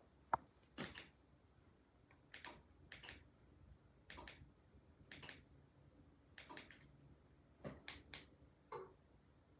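A series of faint, short clicks and taps, about a dozen at irregular gaps of roughly a second, the sharpest about a third of a second in.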